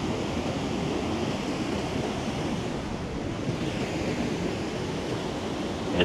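Steady rushing wash of sea waves at the shoreline, with wind on the microphone.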